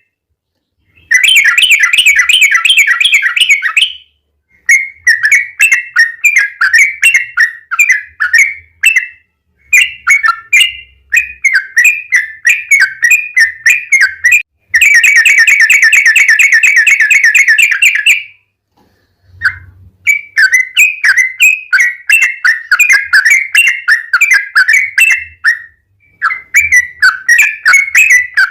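Yellow-vented bulbul (trucukan) singing loud phrases of quick bubbling chirps, broken by short pauses, with one long, very fast rolling trill about halfway through.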